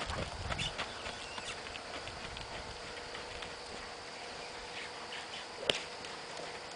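Hoofbeats of a young Pony of the Americas trotting on a lunge line over a soft dirt arena, dull thuds that are heaviest in the first second as the pony passes close. One sharp click stands out about two-thirds of the way through.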